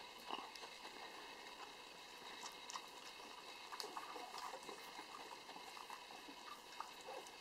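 Schnauzer mother and puppies lapping and eating from a shared dish of soft food: faint, irregular wet slurps and small clicks.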